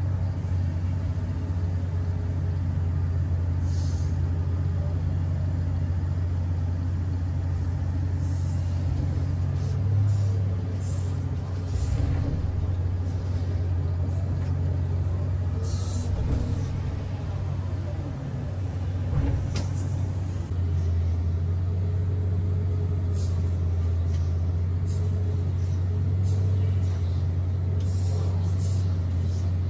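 Komatsu PC3000 mining excavator heard from inside its cab: a steady low diesel engine drone with the hydraulics working as it digs and swings to load a haul truck. Short hisses break in several times.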